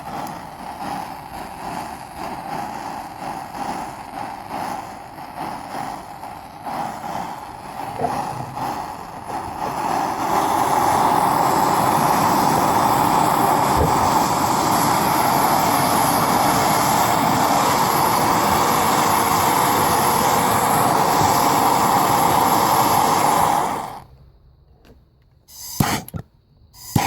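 Gas burner flame burning with an uneven, pulsing rush for about ten seconds, then jumping to a steady, louder full-on rush. It cuts out suddenly near the end, followed by a couple of short puffs. The burner swings between full on and off with no control, which the owner puts down to running without a regulator.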